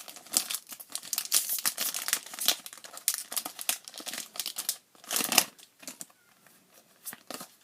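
Foil booster pack of Japanese Pokémon trading cards crinkling and being torn open by hand, a dense run of crackles that stops about five and a half seconds in, with a few light rustles after.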